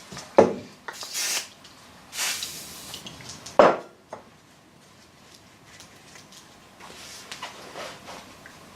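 Metal wiper linkage parts being handled and worked to free up their corroded pivots: scattered clinks and knocks, a sharper knock about three and a half seconds in, and two short hisses near the start.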